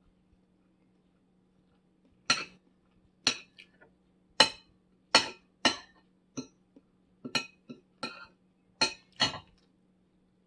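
Metal spoon and fork clinking against a plate while scooping food: about a dozen sharp clinks at an uneven pace, starting about two seconds in.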